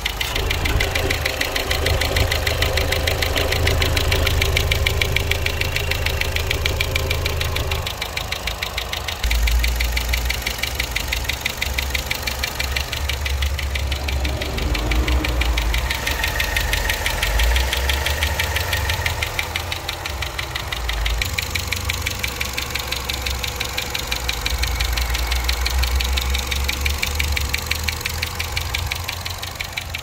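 2011 Chevy Cruze LTZ's 1.4-litre turbocharged four-cylinder running at idle with a fast, even ticking from the top of the engine, under the valve cover.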